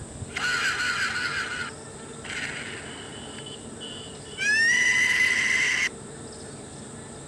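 Short comedy sound-effect clips from a meme soundboard, played one after another. First comes a noisy burst of about a second and a half, then a shorter, weaker one. The loudest, about four and a half seconds in, is a whistle that slides up and then holds for about a second and a half.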